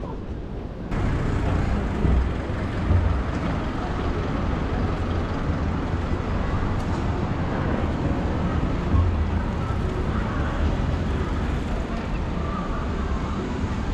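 Steady city street ambience, a wash of traffic and crowd noise, with irregular low rumbles of wind buffeting the action camera's microphone; it gets louder about a second in.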